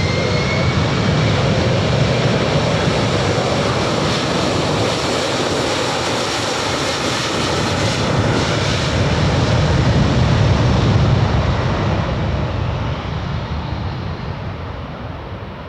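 Boeing 767's twin jet engines at takeoff thrust: a loud roar that builds to its loudest about ten seconds in, then fades as the jet climbs away. A rising whine dies out in the first second.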